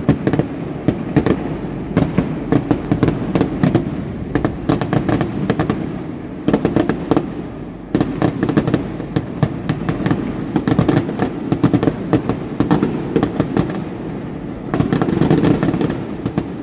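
Aerial fireworks bursting in quick succession: many sharp cracks and bangs, several a second, over a continuous low rumble, easing briefly a few times before picking up again.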